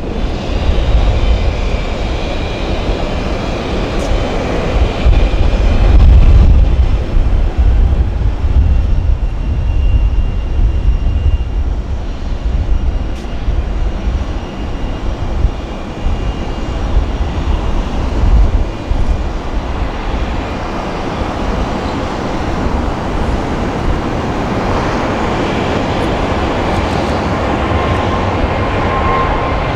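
Jet airliner engines running loud: a continuous rumbling jet noise with a faint steady high whine, and a clearer whine coming in near the end.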